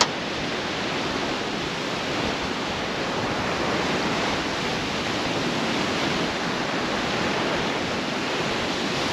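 Surf washing onto the beach: a steady rushing noise that swells gently and never breaks off.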